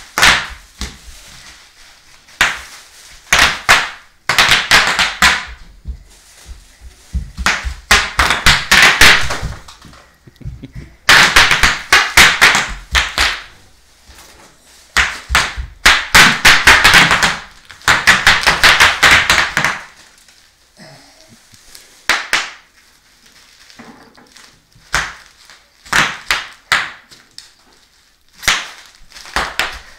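Bubble wrap popping under a small child's running feet: rapid runs of sharp crackling pops, each run lasting a second or two with short pauses between. Near the end the runs thin out to a few scattered pops.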